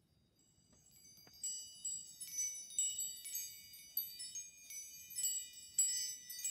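Metal chimes ringing: a quick run of many high, bright tones struck one after another, starting about a second in and growing fuller and louder.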